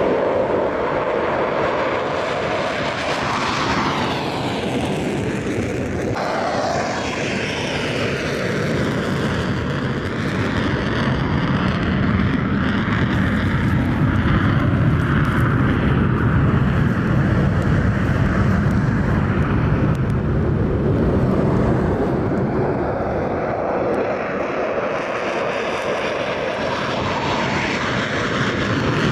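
F-22 Raptor fighter jets' twin Pratt & Whitney F119 turbofans at takeoff power as the jets roll and climb out, a loud, steady roar. The engine pitch sweeps down as a jet passes a few seconds in and rises again as another approaches near the end.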